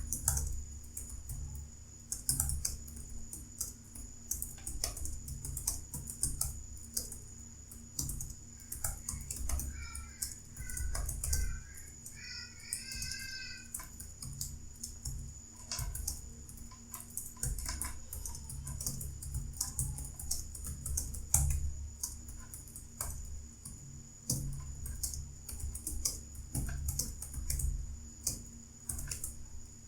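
Computer keyboard typed on steadily during a typing-speed test, a quick irregular run of key clicks. A short wavering, pitched sound rises over the clicking about ten to thirteen seconds in.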